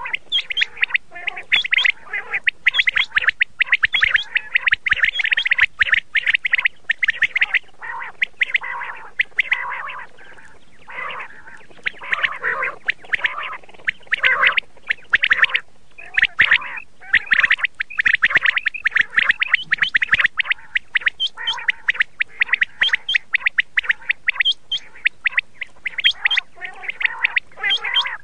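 Quail calling: a dense, rapid chatter of short sharp notes, almost without pause, with a brief lull about ten seconds in.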